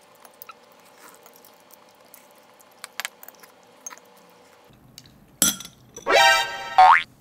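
Faint clinks of a porcelain soup spoon against a ceramic soup pot, then an added editing sound effect: a click followed by a loud bright ringing tone that ends in a quick upward sweep.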